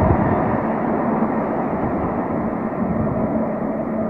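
Taipei Metro C301 train running away down the tunnel, its steady running noise slowly fading.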